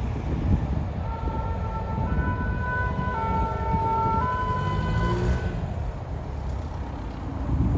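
Two-tone emergency siren alternating between its two notes about once a second, starting about a second in and fading out after about five seconds, faint over a steady low rumble.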